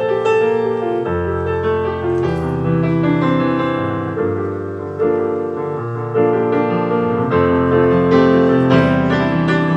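Background piano music, sustained chords changing about once a second.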